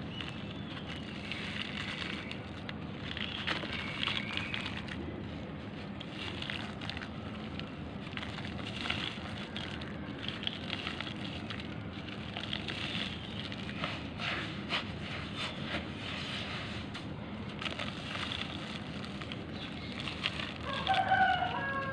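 Damp charcoal lumps crushed and crumbled between fingers, with a continuous crunchy crackle of many small clicks as the pieces break and drop into a bowl of water. A brief pitched sound stands out near the end.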